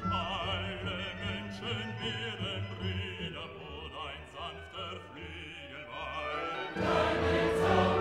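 Background music in a classical style with an operatic singing voice, whose wavering vibrato carries over a sustained accompaniment. It swells suddenly louder and fuller about seven seconds in.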